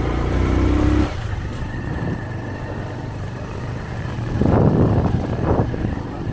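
Motorbike engine running under way, heard from the bike. Its note climbs slightly and drops off sharply about a second in, then settles into a steady rumble. A louder rushing noise lasts about a second past the middle.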